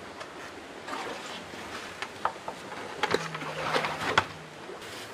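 Racing yacht under way, heard from inside the hull: a steady rush of water and boat noise, with a series of sharp knocks and clicks from work on the keel box lid. A low steady hum joins about three seconds in and lasts about a second and a half.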